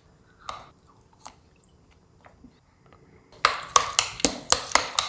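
A person chewing a mouthful of food close to the microphone: a few faint mouth clicks, then about halfway through a quick run of sharp, loud chews, roughly three a second.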